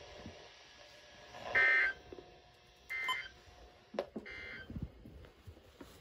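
Three short bursts of warbling data tones from a weather radio, about 1.4 s apart, the first much the loudest: the SAME end-of-message code that closes a NOAA Weather Radio severe thunderstorm warning.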